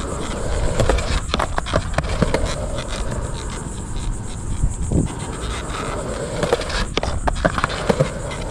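Skateboard wheels rolling on concrete with a steady rumble, broken by sharp clacks of the board and trucks striking: a few about a second in, one around two seconds, and a cluster near the end.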